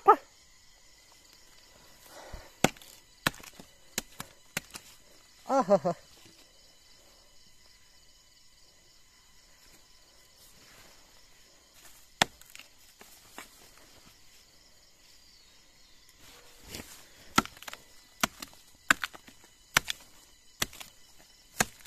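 A machete chopping into a rotting log to split it open for wood-boring grubs: a few sharp chops early on, a lone one midway, then a quicker run of chops in the last five seconds. A single short call falling in pitch cuts in about six seconds in.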